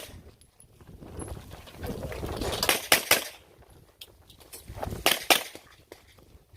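Semi-automatic service pistol fired in quick strings: three shots about a quarter second apart nearly three seconds in, then three more about two seconds later, with the shooter's movement noise in between.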